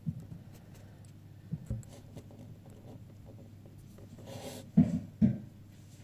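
Handling noise from a handheld camera: a few soft low bumps, with a short rubbing rustle just before the two loudest bumps near the end.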